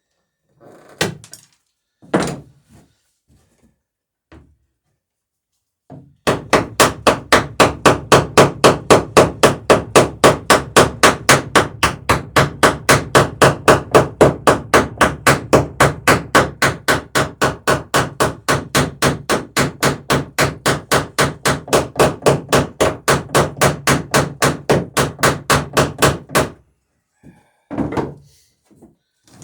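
Hammer striking copper boat rivets in a fast, even series of about four blows a second for some twenty seconds, peening the rivets over their roves on wooden dory planking; a couple of single knocks come before the run and a few after it.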